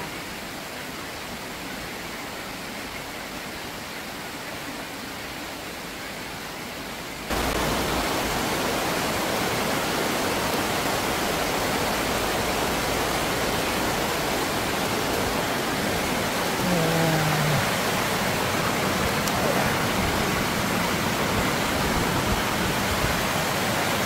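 Stream water pouring over a low concrete weir, a steady even rush; it gets suddenly louder about seven seconds in.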